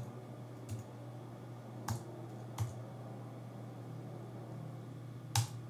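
Computer keyboard keystrokes: about five single, spaced-out key presses, the last and loudest near the end, as the Enter key runs a command. A steady low hum lies beneath.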